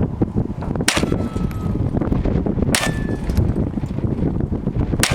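Three gunshots about two seconds apart, each followed by a short, thin metallic ring, over steady wind noise on the microphone.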